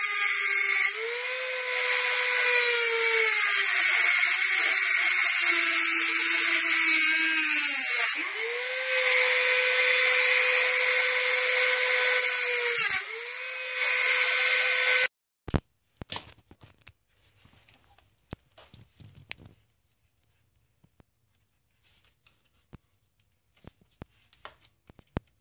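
Dremel rotary tool with a cutoff disc whining at high speed as it cuts through the crimped metal tube of a heater hose. The pitch sags for a few seconds as the disc bites into the metal, recovers, dips once more, then the tool stops abruptly about fifteen seconds in, leaving a few light taps of handling.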